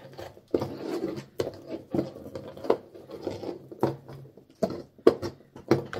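Small foil-wrapped chocolate eggs knocking and clicking on a tabletop as they are pushed around and sorted by hand, in irregular light taps.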